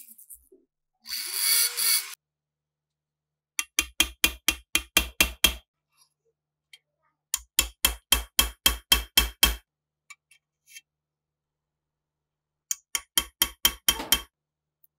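Hammer tapping a steel punch to drift the rusted rear sight along a PPS submachine gun receiver: three quick runs of metallic strikes, about five a second, each run lasting about two seconds. A rotary tool whirs briefly just before the first run.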